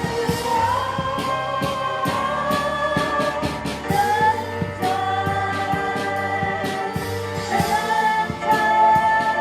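Live worship music: sung voices holding long notes over a sustained instrumental backing, with a steady beat of light percussive strokes.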